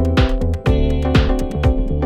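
Electronic background music with a steady drum-machine beat, bass and synth chords.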